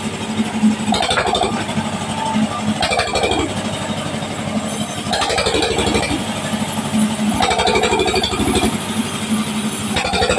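A sawmill's engine-driven saw running while a log is fed through it. A steady low engine hum and pulsing carry on throughout, with a louder cutting surge that comes back about every two seconds.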